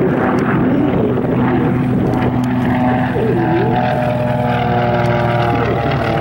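Twin radial piston engines of a Beechcraft 18 in flight, a steady propeller drone of several tones as it flies past.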